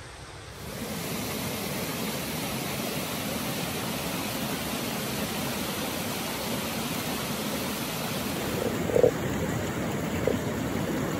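Steady rush of a mountain river or stream, starting abruptly about half a second in, with a couple of brief knocks near the end.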